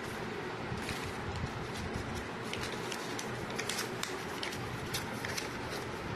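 Paper leaflet and plastic packaging crinkling and rustling as they are handled, a run of short, sharp crackles over a steady background hiss.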